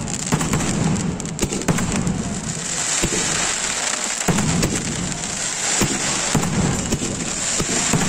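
Firecrackers and fireworks going off densely: a continuous crackle of many small pops running together, with sharper single bangs scattered through.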